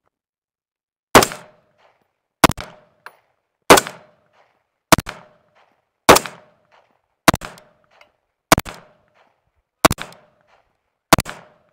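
Lockhart Raven 5.56 semi-automatic rifle firing nine single shots of Remington UMC .223 ammunition, evenly paced about one and a quarter seconds apart, each trailed by a fainter echo. All nine rounds in the magazine fire without a stoppage.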